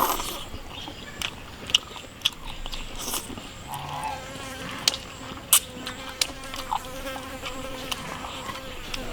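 Eating at the table: scattered sharp clicks and clinks with chewing, as the turtle and chicken-wing stew is eaten. A faint steady insect buzz, like a mosquito, runs under it from about halfway in.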